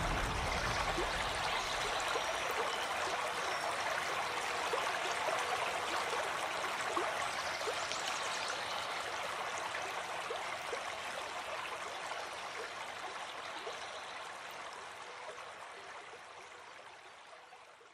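River-in-a-forest sound effect: a steady rush of running stream water that slowly fades out over the last several seconds.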